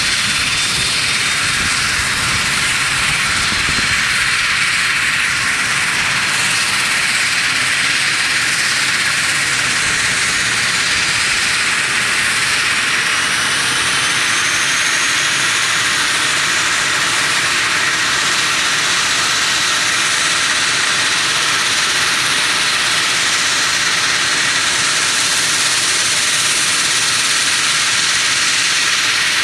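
The two Pratt & Whitney Canada PW123 turboprop engines of a Dash 8-300 running at ground idle with propellers turning: a steady, loud turbine hiss and whine. A faint high whine rises slowly in pitch through the first half.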